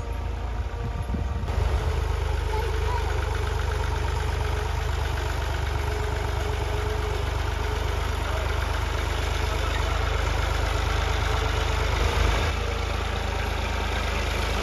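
Massey Ferguson 260 tractor's three-cylinder diesel engine running steadily while pulling a tine cultivator through ploughed soil. It grows louder and fuller about a second and a half in.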